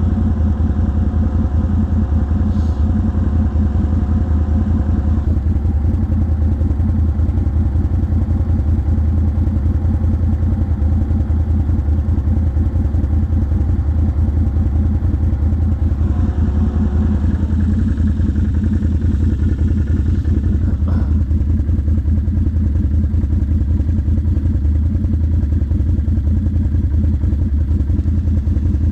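ATV engine running steadily at a low, even pitch, with a higher whine over it for the first few seconds and again briefly past the middle.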